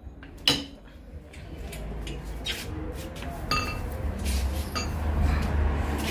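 Sharp metal knock, then scattered light clinks and clicks, from hand work on the Yamaha FZ25's exhaust fittings while the aftermarket exhaust is taken off. A low rumble builds up toward the end.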